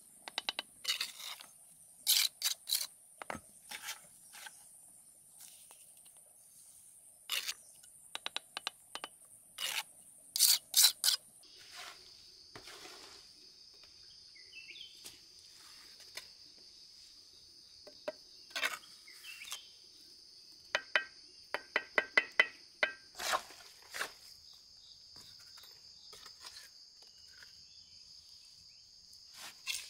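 Steel trowel and bricks being worked in cement mortar: short scrapes and knocks as bricks are set and tapped down, with a quick run of taps about two-thirds of the way through. A steady high insect trill runs underneath, giving way to a lower one about a third of the way in.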